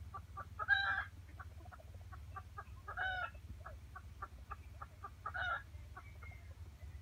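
Jungle fowl hen clucking in a rapid steady series, about four to five clucks a second, broken three times by a louder, longer call.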